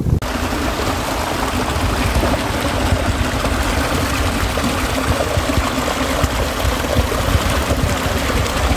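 River water rushing steadily over a shallow riffle of rocks, an even rushing noise.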